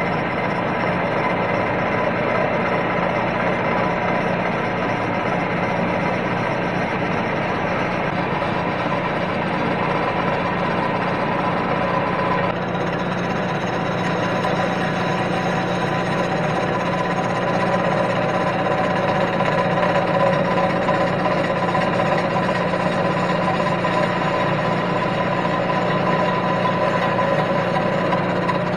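Giddings and Lewis model 25 horizontal boring mill running, its face mill cutting across the flange face of a cast-iron exhaust manifold: a steady machining noise with a constant tone, changing slightly about twelve seconds in.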